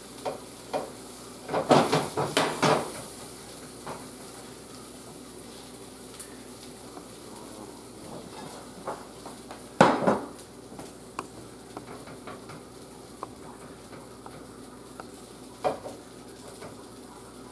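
Quesadilla frying in a skillet on a gas burner with a faint steady sizzle, broken by clinks and knocks of utensils against the pan: a cluster about two seconds in, a loud knock about ten seconds in, and a smaller one near the end.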